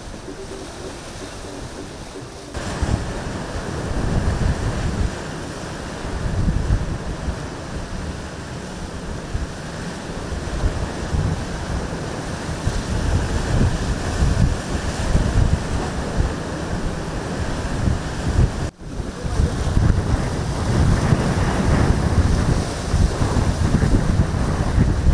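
Strong gusty wind buffeting the microphone over the wash of a choppy, whitecapped sea. It gets much louder about two and a half seconds in and cuts out for an instant about three-quarters of the way through.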